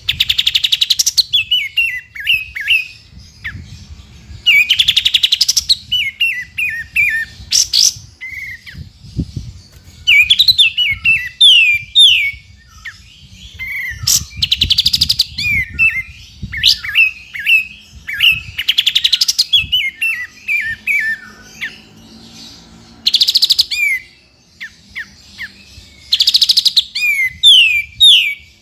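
Kapas tembak bulbul singing in repeated phrases, about one every three to four seconds. Each phrase is a rapid rattling burst followed by a quick run of short descending chirps. A faint low rumble runs underneath.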